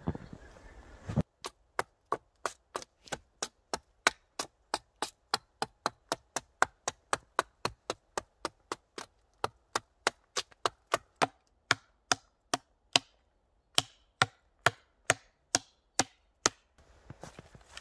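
Hatchet chopping a birch pole: a long run of sharp, even strikes, about three a second, with a short pause near the end.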